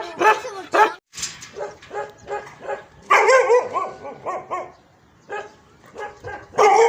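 Dog barking in quick repeated barks, about three a second. The barking cuts out abruptly about a second in, then comes back, loudest around the middle and again near the end.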